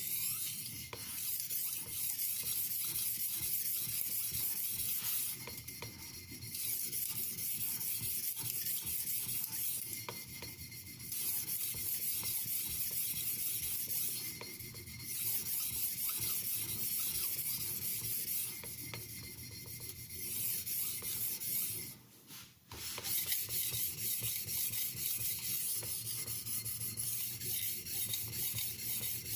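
Steel Santoku blade being stroked on an oiled Washita natural oilstone, a steady scraping hiss made of many quick strokes, broken by short pauses every few seconds. This is the stage that refines the scratch pattern left by the coarser Norton India stone.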